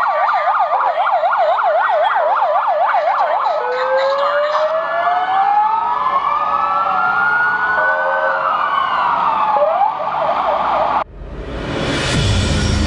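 Ambulance sirens as ambulances drive past. There is a fast yelp, about four cycles a second, for the first few seconds, then slower wails rising and falling, several overlapping. About 11 seconds in the sirens cut off suddenly and music starts.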